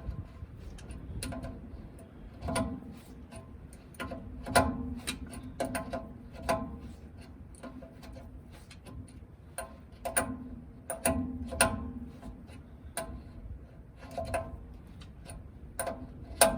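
Hand tools working on metal truck brake parts: irregular metallic clinks and taps with a short ring, roughly one every half second to a second, as fittings and air lines are worked loose.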